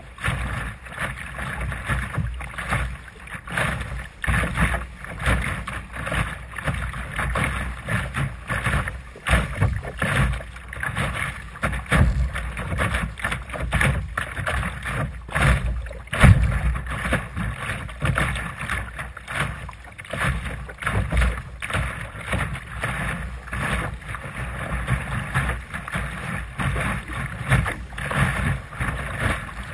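Water rushing and splashing along the hull of a Sunfish sailing dinghy under way, surging unevenly with the chop. A low rumble of wind on the microphone runs under it.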